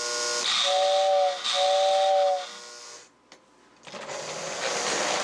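Lionel postwar 773 Hudson's tender whistle, a motor-driven air whistle, blowing two blasts of a two-note chord over a rushing hiss. About three seconds in the sound drops out with a single click, then a steady rushing running noise builds up.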